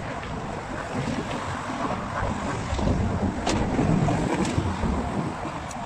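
Wind buffeting the microphone over the steady rush of car traffic, swelling a little about three to four seconds in.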